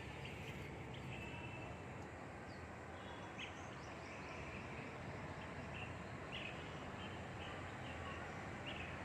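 Steady outdoor background noise with a low rumble, and short bird chirps scattered through it.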